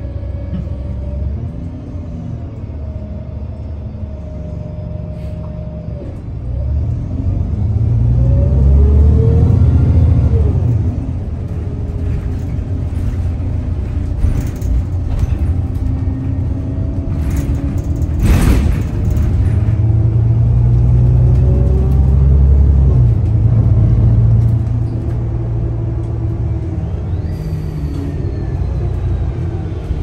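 Interior of a New Flyer XN40 compressed-natural-gas bus under way: a steady engine rumble, with a Voith transmission whine whose pitch glides up and down as the bus speeds up and slows. The engine swells louder twice, and there is a single sharp knock about 18 seconds in.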